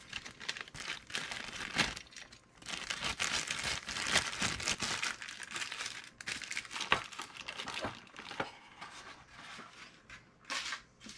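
Thin clear plastic bag crinkling as it is handled around a die-cast toy truck, most busily a few seconds in, with a few sharp clicks and knocks later on.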